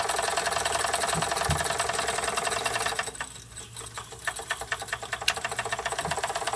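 Jensen #75 model steam engine running fast with a rapid, even beat while driving a small generator by belt. About three seconds in the sound drops away and the beats come slower and more spaced, then build back up to the fast rhythm.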